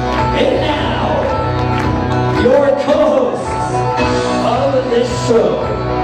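A loud recorded song with a singing voice, played over a DJ's sound system.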